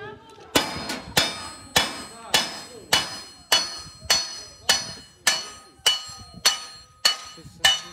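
Hand hammer beating a copper sheet over a steel bar: a steady run of about thirteen blows, a little under two a second. Each blow rings briefly with a high metallic tone.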